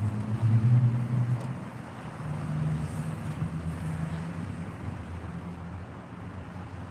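Low, steady hum of a car heard from inside the cabin, louder for the first second and a half and then a little quieter.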